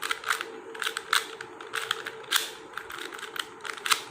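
2×2 Rubik's cube being twisted to scramble it: an irregular run of quick plastic clicks, a few each second, as the layers are turned.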